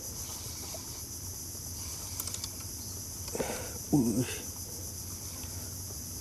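Steady high-pitched insect drone, with a short splash and a brief wordless voice about three and a half to four seconds in, as a fish takes the bait and pulls the line into a swirl on the water.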